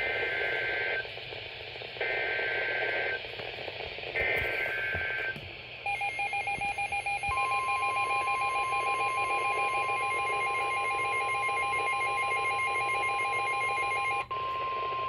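Emergency Alert System signal: three short bursts of screeching SAME digital header data, about two seconds apart. About six seconds in a rapidly pulsing electronic beeping starts. A second later it is joined by the steady 1050 Hz NOAA Weather Radio warning alarm tone, which carries on alone after the beeping cuts off near the end.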